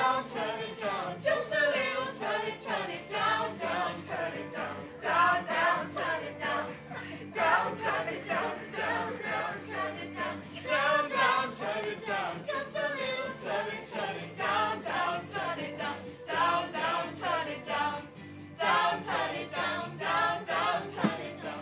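A group of voices singing a song together over quiet backing music.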